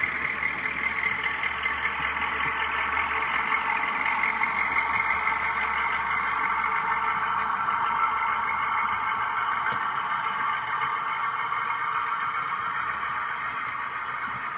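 Model Class 05 diesel shunter's DCC sound decoder playing a recording of the real locomotive D2595's diesel engine, which runs steadily through the model's small onboard speaker.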